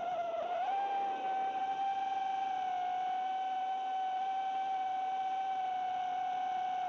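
FPV freestyle quadcopter's brushless motors (iFlight Xing 2206) spinning Ethix S3 propellers, giving a steady high whine at an even throttle. The pitch wavers slightly during the first second, then holds.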